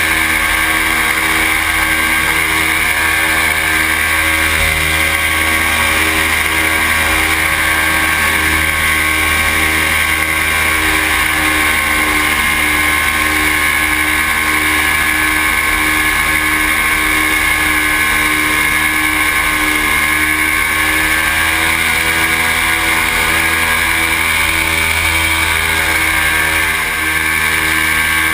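Paramotor engine running steadily at cruise power in flight, its pitch wavering only slightly.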